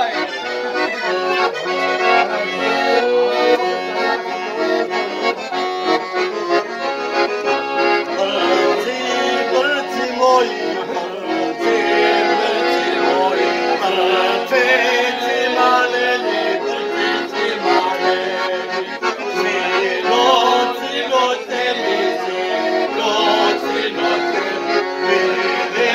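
Accordion playing a traditional folk tune, a melody over sustained chords.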